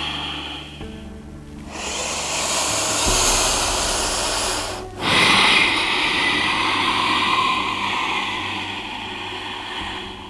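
Deep, audible yoga breathing: two long, noisy breaths, the first starting a couple of seconds in and the second, louder one starting about halfway and lasting some five seconds, paced with the cat-cow spine stretch. Soft background music underneath.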